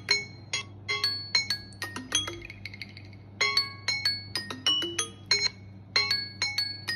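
Smartphone alarm ringing: a short melody of bright chime-like notes that repeats every few seconds.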